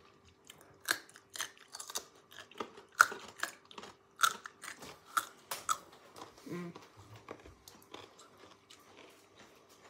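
Someone chewing a crunchy fermented dill pickle carrot: irregular crisp crunches, thickest in the first six seconds, then fainter.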